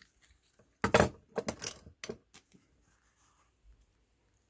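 A baseball trading card being slid into a soft plastic sleeve: a few short plastic crinkles and taps in the first couple of seconds, the loudest about a second in, then faint handling ticks.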